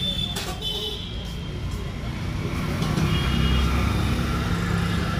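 Steady low rumble of vehicle traffic, a little louder after about three seconds, with a sharp click about half a second in.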